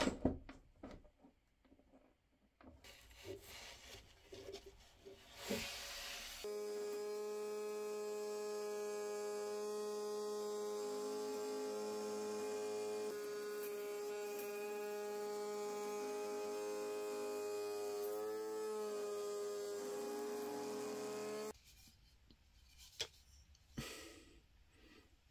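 A cordless 18-volt trim router mounted under a table with a roundover bit runs at a steady high whine while it rounds over the edge of a wooden axe handle. The pitch wavers briefly near the end before the sound cuts off abruptly. Before it starts there are a few light knocks from handling.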